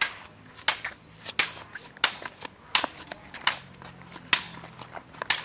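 Swords clashing in a duel: about ten sharp strikes at irregular intervals, some in quick pairs.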